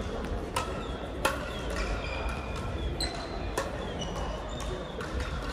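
Crossminton rackets striking the speeder during a rally, a sharp hit roughly every half second to second, several of them loud. Short high squeaks of court shoes come between the hits, over the steady din of a sports hall.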